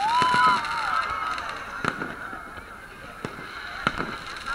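Fireworks display: sharp bangs of bursting shells about two, three and four seconds in over steady crowd hubbub. It opens with a loud honking tone in the first second that rises a little, holds and then falls away.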